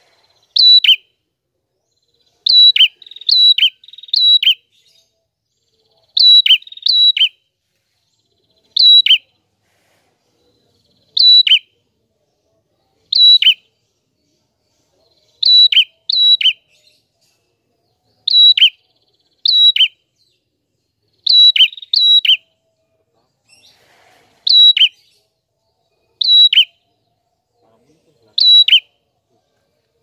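A caged red-headed prenjak calling: short, sharp two-part notes, each a high chip dropping into a falling note, repeated about every one to two seconds and sometimes doubled in quick succession.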